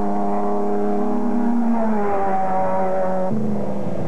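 Racing sports car engines running at high revs, a steady pitched engine note. The note shifts about two seconds in, then cuts abruptly to a different engine sound near the end.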